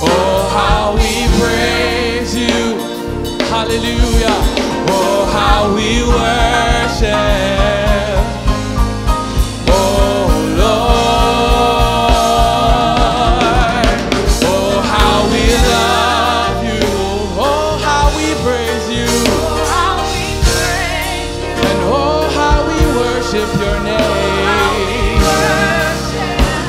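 Gospel music: a singer with a wavering vibrato over instrumental backing, with a steady beat through the middle.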